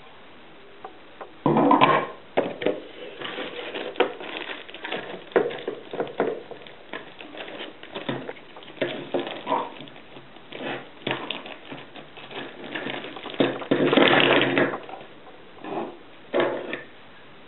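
Handling noise from unpacking a car alarm kit: irregular clicks, taps and rustling of packaging and small plastic parts. There are two longer, louder rustles, one about a second and a half in and one near the fourteen-second mark.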